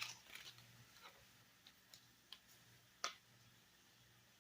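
Near silence broken by a few faint light clicks, with one sharper click about three seconds in, from small plastic toy capsule pieces being handled.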